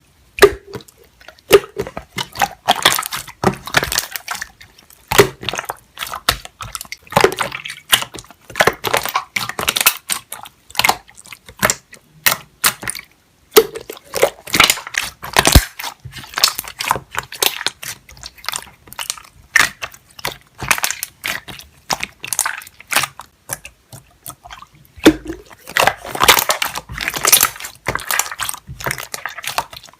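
Slime being squeezed and stretched by hand, making rapid wet clicks, crackles and pops in bursts of a second or two with short pauses between.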